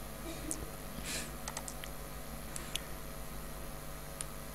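Quiet room tone with a steady low hum, broken by a handful of faint, scattered clicks.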